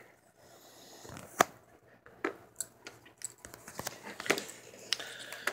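Desk-top handling noise as hardcover sketchbooks and a pen are picked up and set down: a string of light knocks and clicks, the sharpest about a second and a half in.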